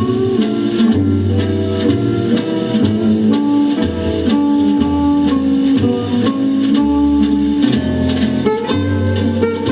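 Upbeat instrumental music with plucked guitar, a walking bass line and drum kit keeping a steady beat.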